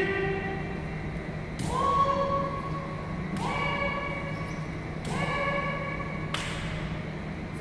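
Naginata kiai: three drawn-out, high-pitched shouts about a second and a half apart, each opening with a sharp knock, then a single sharp knock near the end.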